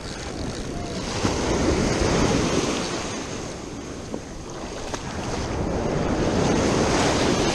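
Ocean surf washing up the beach, swelling twice, about two seconds in and again near the end, with wind buffeting the microphone.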